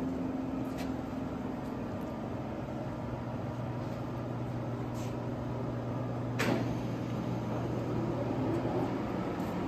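LeBlond Regal 36-inch engine lathe running under power with a steady low hum, smooth and quiet; the low tone grows a little stronger about three seconds in, and there is one sharp click about six and a half seconds in.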